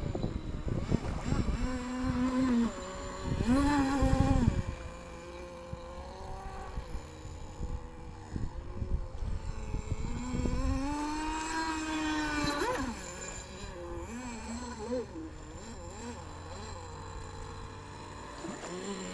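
RC boat's Kyosho GXR28 nitro engine buzzing at speed, its pitch rising and falling as the throttle changes and the boat turns. It is loudest about four seconds in and again around eleven to thirteen seconds, and fainter later as the boat runs farther out. Wind rumbles on the microphone during the first few seconds.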